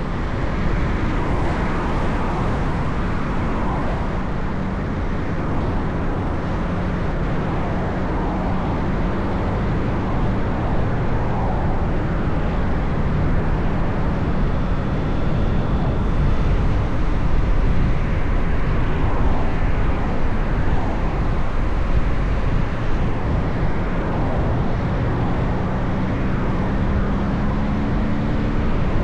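A car driving on the road: steady road and engine noise, heaviest in the low end.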